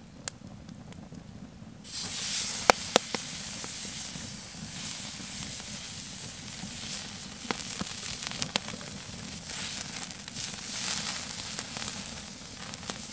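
Steak sizzling on a hot grill grate over an open fire. The sizzle starts suddenly about two seconds in as the meat goes onto the grate, then runs on steadily with a few sharp pops.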